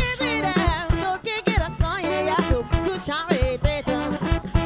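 Live band music: a woman singing over a steady drum beat with bass and electric guitar, from a funk band with a horn section.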